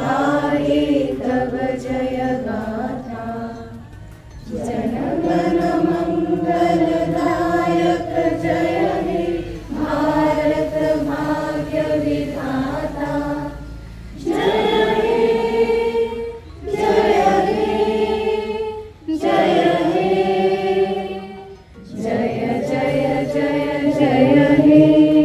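A crowd of teachers and students singing together in unison, in long held phrases with short pauses between them.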